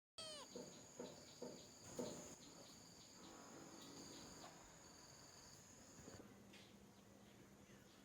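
Faint insects chirring at a steady high pitch, with a few soft taps in the first two seconds. The chirring stops about six seconds in.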